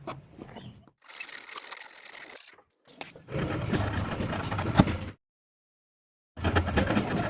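Wood being worked with hand tools: rasping, scraping passes in short clips that start and cut off abruptly, with dead silence between them.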